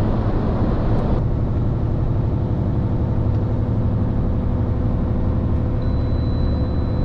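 Heavy truck's engine and road noise heard from inside the cab at speed; about a second in, the noise thins as the truck leaves a tunnel. Near the end, a steady high-pitched warning beep from the cab starts and keeps sounding, signalling a sudden fault: the truck's radiator hose is leaking coolant.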